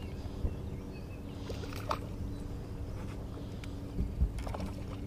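Steady low hum of a bass boat's motor, with a hooked bass splashing at the side as it is brought in by hand: a short splashy rush a little under two seconds in and two dull thumps about four seconds in.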